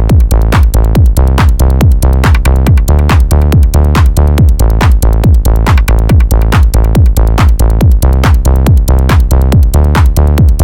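Live electronic techno from a Roland TR-8S drum machine, Korg EMX synthesizer and Korg ESX sampler: a steady, loud drum-machine beat of evenly repeating hits over held bass and synth tones.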